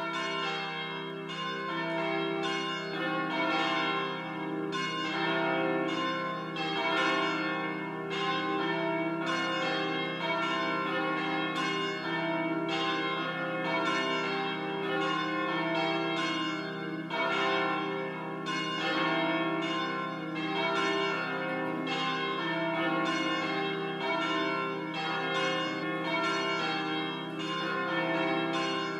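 Church bells pealing: a steady succession of strikes, each ringing on and overlapping the next.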